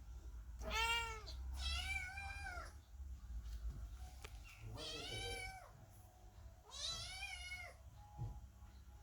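Kittens meowing, four drawn-out, high-pitched meows a few seconds apart.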